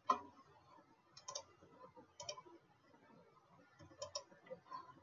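Computer mouse clicks: about five short, sharp clicks spread over a few seconds, several of them in quick pairs.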